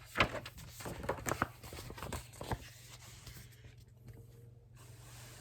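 Paper rustling with a few sharp clicks as the pages of a picture book are handled and turned, over about the first two and a half seconds. After that there is only a faint, low, steady hum.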